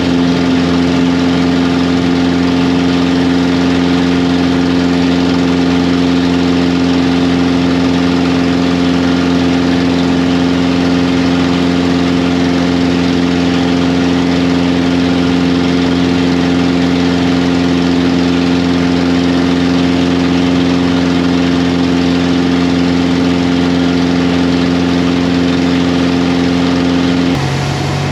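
Avid Flyer light aircraft's engine and propeller drone, running at a steady power setting. Near the end the pitch drops and the sound gets a little quieter as power is reduced.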